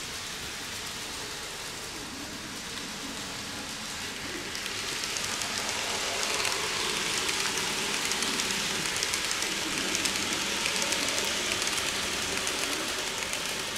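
N-gauge TOMIX C57 model steam locomotive and its coaches running on the model track: a steady rolling hiss that grows louder about four and a half seconds in as the train comes close, with rapid fine clicking from the wheels.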